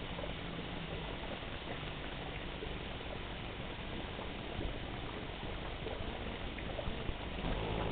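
Steady water noise, an even hiss with a few faint scattered clicks, and a low hum that fades about a second in.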